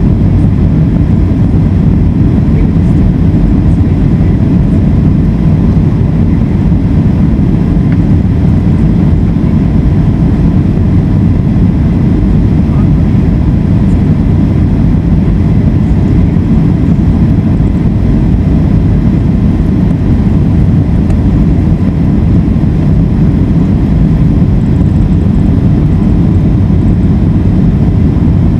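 Cabin noise inside a Boeing 757 airliner on approach: the engines and the rush of air over the fuselage make a steady, deep rumble, with a faint steady whine above it.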